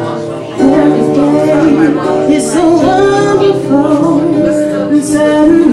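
A woman singing while playing an acoustic guitar, live through a microphone; her voice comes in strongly about half a second in, over the guitar.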